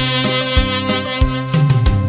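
Saxophone playing a slow pop ballad melody over a backing track with a steady drum beat and bass line.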